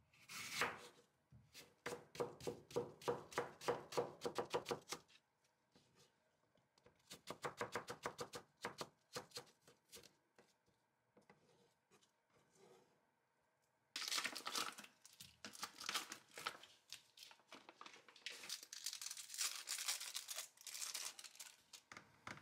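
Chef's knife cutting an apple on a wooden cutting board in two runs of rapid, even strokes. About two-thirds in, this gives way to imitation crab sticks being torn apart by hand into shreds, a scratchy tearing noise.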